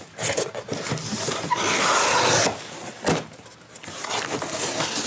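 Cardboard shipping box being torn open by hand: packing tape ripping and cardboard flaps scraping and rustling. The longest, loudest rip comes a little before halfway through, with shorter tears and scrapes around it.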